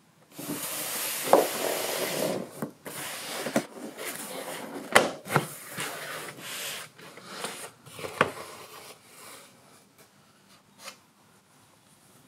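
Moulded foam carry case being handled and opened: the foam lid rubs and scrapes against the base, with several sharp clicks and knocks along the way. The rubbing dies away about nine to ten seconds in.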